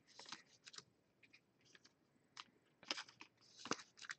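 Faint, scattered clicks and light scrapes of trading cards being handled, with about half a dozen short snaps, the loudest a little after three and a half seconds in.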